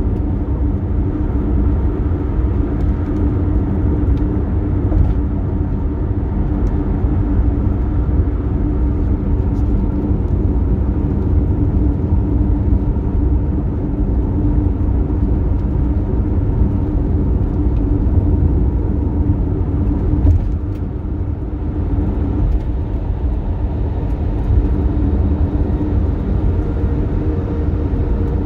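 Toyota Tercel driving at highway speed: a steady low road-and-engine drone with a steady hum on top, the abnormal noise this car makes on the highway. The level dips briefly about twenty seconds in.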